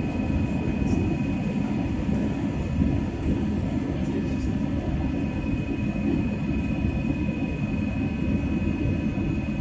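Cabin noise of a turbofan jet airliner climbing after takeoff: a steady low rumble of the engines and rushing air heard from inside the cabin, with a steady high whine above it.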